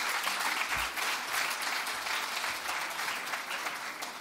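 Audience applauding, a dense steady clapping that slowly thins out near the end.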